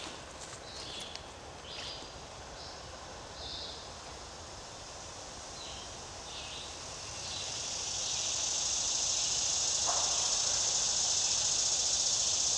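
Cicada buzzing in the trees, a steady high drone that swells up about halfway through and then holds loud. A few short scratchy sounds come before it.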